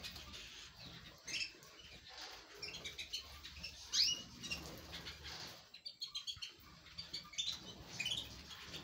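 A flock of canaries chirping in short calls, some rising in pitch, with wings fluttering as birds flit about the aviary floor.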